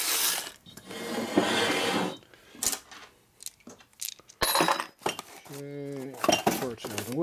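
Cardboard parts boxes shoved and rustling at first, then small metal gears and parts clinking together as they are handled, with several sharp clinks.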